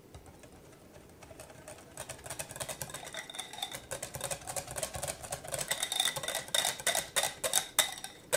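Wire balloon whisk beating cheesecake batter in a glass mixing bowl, its wires clicking rapidly against the glass. The clicking builds from about a second in, grows louder and denser, and stops abruptly at the end.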